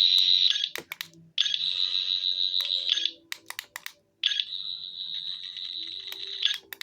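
Electronic sound effects of a 14th Doctor sonic screwdriver toy: high, buzzing, warbling tones played through its small speaker. One burst ends less than a second in, a second runs from about 1.5 to 3 seconds, and a third from about 4 to 6.5 seconds. Short mechanical clicks come in the gaps between them.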